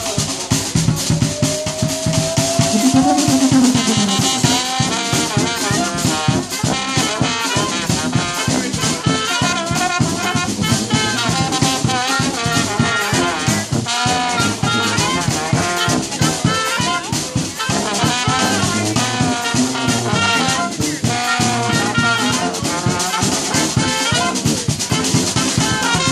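Small brass band playing jazz live: trombone, trumpet, clarinet and sousaphone over a steady drum beat.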